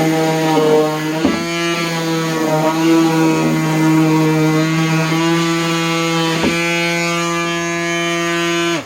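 DeWalt palm orbital sander with a 3M Cubitron II disc sanding cedar: a steady motor hum, its pitch dipping briefly a few times. The sander is switched off near the end and the sound stops sharply.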